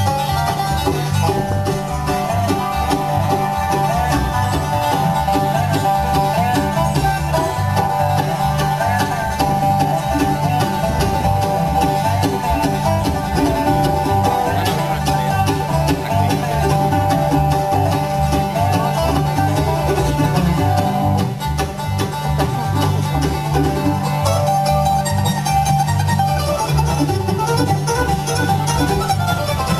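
Live bluegrass band playing an instrumental on five-string banjo, mandolin, acoustic guitar, dobro and upright bass, the bass plucking a steady beat under rapid picked notes.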